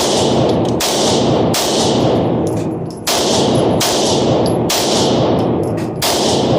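Gunshots from a Glock 19 9mm pistol: seven shots in triplets about 0.8 s apart, with a pause between each group of three. Each shot rings on with a long echo.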